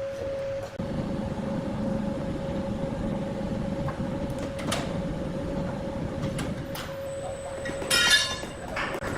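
Wood-cutting saw machinery running: a steady hum with a rough rumble that grows louder about a second in, and a short loud rattling screech near the end.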